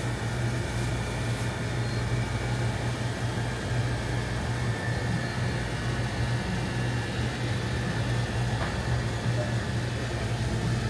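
Steady low mechanical hum of shop equipment such as coolers or air conditioning, with a few faint, high, steady tones above it.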